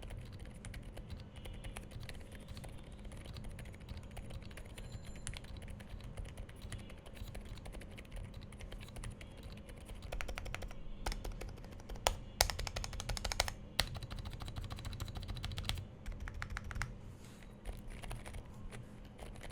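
Typing on a Monsgeek M3W aluminum TKL mechanical keyboard fitted with Akko Silent Penguin silent tactile switches. The keystrokes are soft and quiet, close to dead silent, with a run of louder key presses about two-thirds of the way through.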